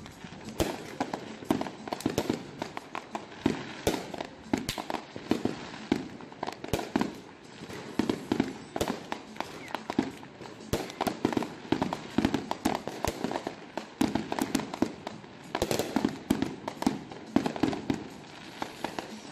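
Fireworks going off: a dense, irregular string of bangs and crackling pops, several a second.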